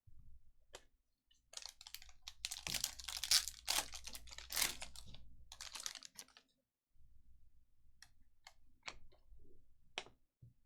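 Trading cards being handled: a dense run of crinkling, tearing and clicking, typical of a foil card pack being torn open, then a few separate light clicks as the cards are handled.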